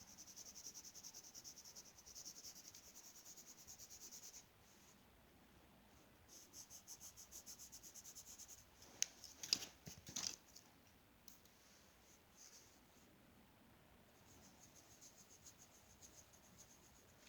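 Faint, quick back-and-forth scratching of a coloring implement shading in on paper, in three runs of strokes. A few louder clicks or taps come about halfway through.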